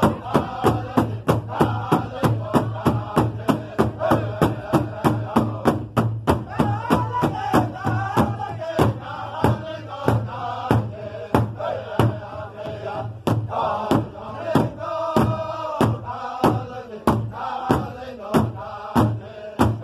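Powwow drum group: several men striking a single large drum together with padded sticks in a steady beat, about two to three strokes a second, while singing a chant as a group.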